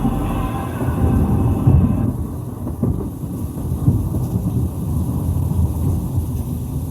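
JBL Boombox 3 portable Bluetooth speaker playing music at full volume. For about two seconds there are pitched notes over heavy bass; then the upper notes drop out and only a deep, rumbling low end is left, like thunder.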